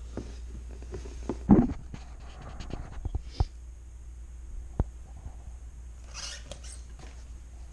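A large cardboard winch box being handled and turned on a countertop: a loud thump about a second and a half in, a few sharp knocks, and a brief scrape of cardboard near the end.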